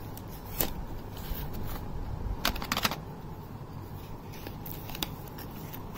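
Small cardboard product box being opened by hand and a tube taken out: scattered light scrapes, taps and rustles, with a short burst of crackling about two and a half seconds in.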